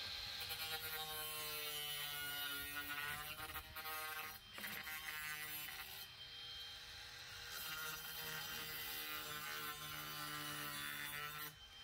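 Small angle grinder with a thin cutoff wheel whining as it cuts through a vinyl siding corner post, its pitch dipping and recovering as the wheel bites. The motor drops off briefly a little before halfway, runs again, and stops near the end.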